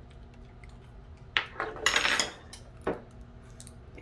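Metal spoons clinking and scraping against glass cereal bowls: a few separate clinks, with a short louder scrape near the middle.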